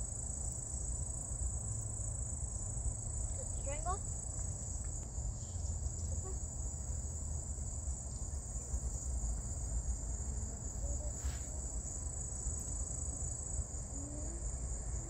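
A steady, high-pitched chorus of insects calling without a break, over a low steady rumble.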